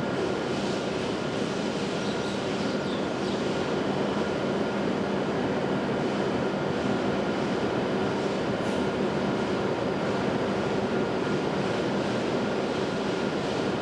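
Steady mechanical hum over an even rush, with several held tones, from a Shinkansen train with its equipment running on the platform track.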